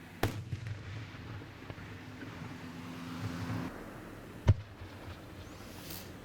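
Firework shells bursting in the sky: two sharp bangs, one just after the start and a louder one about four and a half seconds in, with a low rumble between them.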